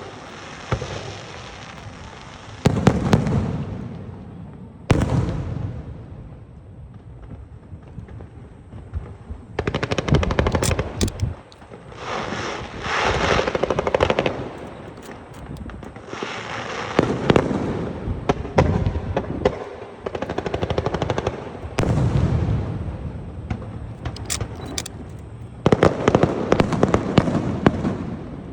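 Aerial fireworks going off in repeated volleys: deep booms together with dense, rapid crackling, with short lulls of a second or two between bursts.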